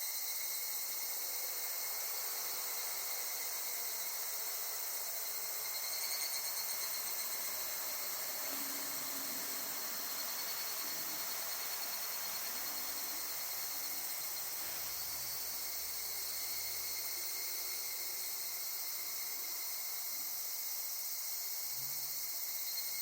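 Higurashi (evening cicadas, Tanna japonensis) calling in a steady chorus, a continuous high-pitched ringing that swells and pulses briefly about six seconds in.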